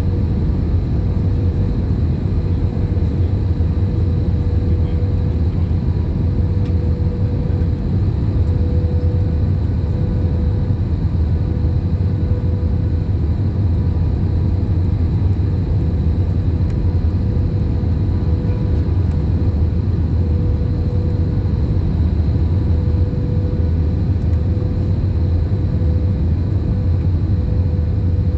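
Airbus A320ceo cabin noise on approach: a steady low rumble of engines and airflow with a thin, steady high hum over it.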